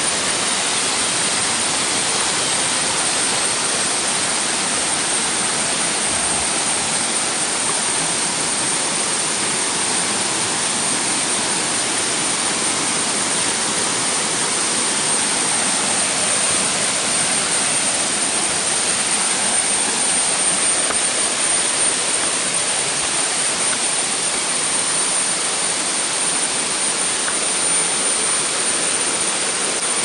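Waterfall and its cascades pouring into a rock pool: a steady, even rush of falling water, with a thin steady high-pitched tone over it.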